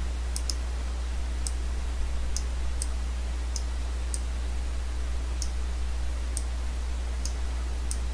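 Computer mouse clicking about a dozen times at irregular intervals, with a quick double click near the start, as the on-screen photo is zoomed and panned. A steady low hum runs underneath.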